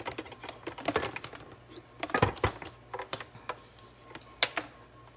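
Kitchen handling noises: irregular light clicks and taps, a cluster of louder knocks a little past two seconds in, and one sharp click near the end.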